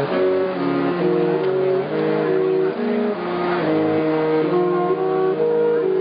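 Background music of held instrument notes in shifting chords.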